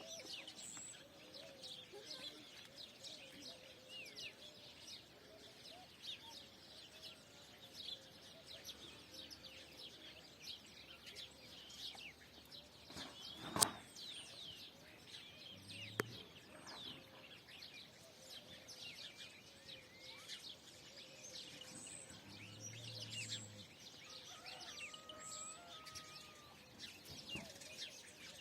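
Many small birds chirping and twittering, a faint chorus of quick high chirps, with a sharp click about halfway through and a softer one a couple of seconds later.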